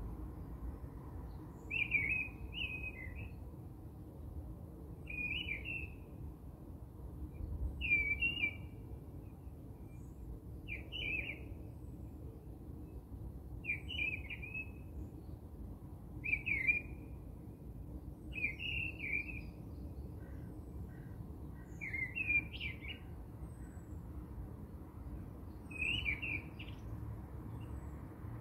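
A bird chirping in short, repeated phrases about every three seconds, over a low steady hum.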